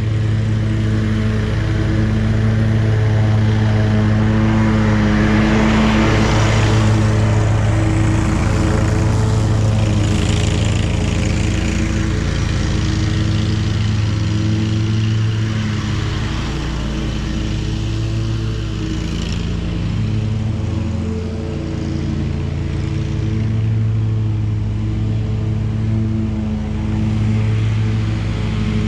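Zero-turn riding mower's engine running steadily at mowing speed, holding one pitch. Swells of rushing noise come a few seconds in and again near the middle.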